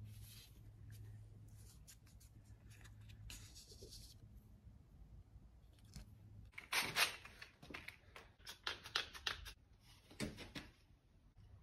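Faint handling noises from working on a blade: a run of short scrapes, rustles and clicks that grow louder and come thick and fast in the second half, over a steady low hum.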